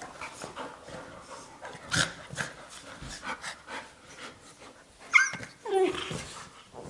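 Two Labrador retrievers, a puppy and its mother, play-fighting: scuffling, thuds and panting, then about five seconds in a short high yelp followed by a lower whine falling in pitch.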